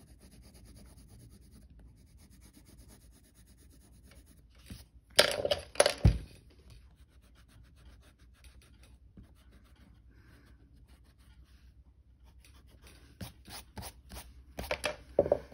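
Faint scratching of a pencil on drawing paper, with loud bursts of rubbing against the paper about five to six seconds in, ending in a low thump, and a quick run of rubbing strokes near the end as an eraser is worked over the drawing.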